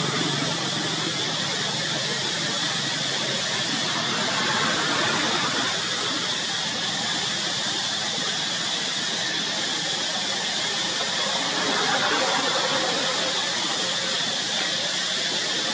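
Steady high-pitched hiss with a faint buzz in it, swelling slightly about five and twelve seconds in.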